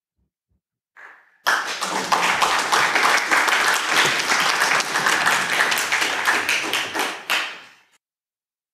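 Audience applauding, starting suddenly about a second and a half in and fading out near the end.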